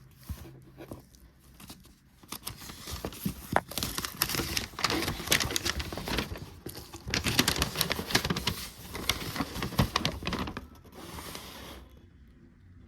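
Paper and packaging being handled: rustling and crinkling with many small clicks and taps, starting about two seconds in and dying away shortly before the end.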